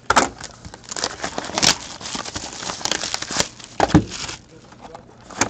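Plastic shrink-wrap being torn and crinkled off a sealed box of hockey cards: a dense crackling rustle with small clicks, and a sharper knock about four seconds in, before it dies down.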